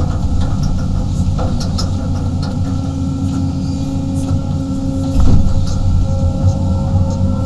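35-ton excavator's diesel engine and hydraulics running steadily under load, heard from inside the cab, with a constant whine as the bucket digs into dirt. A heavy thump a little over five seconds in.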